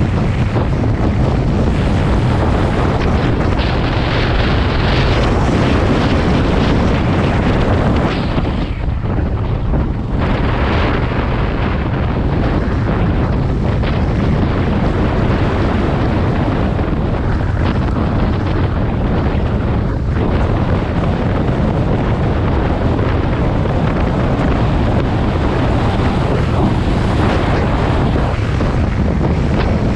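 Loud, steady wind buffeting the microphone of a camera on a moving motorcycle, briefly easing about nine seconds in.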